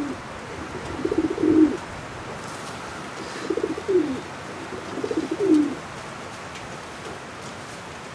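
Racing pigeons cooing: three low coos, each falling in pitch, a second or two apart.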